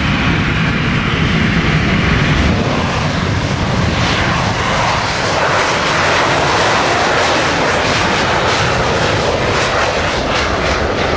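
Harrier jump jet's Pegasus turbofan engine running at high power, a loud, steady jet noise that does not let up, during its short takeoff and climb-out.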